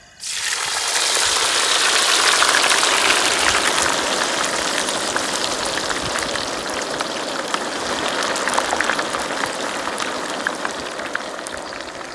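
Cut potatoes going into hot oil for French fries: a sudden loud sizzle full of crackles starts just after the beginning and slowly eases as the oil keeps bubbling around the potatoes.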